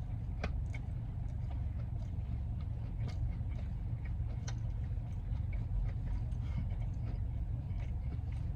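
A person biting and chewing a chicken wrap, with scattered small clicks of mouth and wrapper over a steady low rumble.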